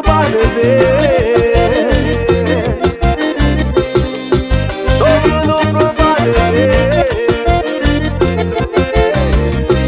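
Instrumental break of a Brazilian pisada capixaba (forró-style) song: a lead melody over a pulsing bass and a steady dance beat, with no vocals.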